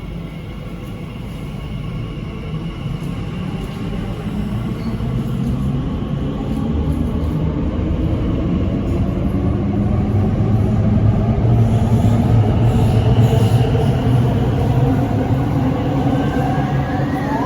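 Electric train at a station platform, its running hum growing steadily louder, with a tone rising in pitch near the end.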